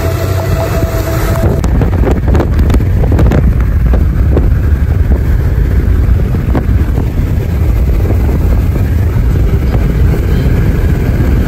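Road and wind noise inside a moving car: a loud, steady low rumble. A steady tone stops about a second and a half in, and a few short knocks come about two to four seconds in.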